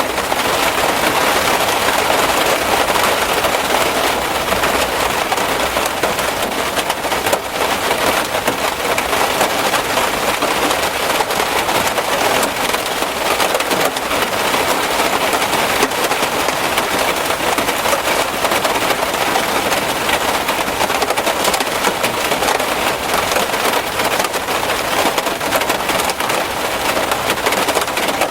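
Heavy rain drumming on a car, a dense, steady patter of countless drops hitting the roof and body panels.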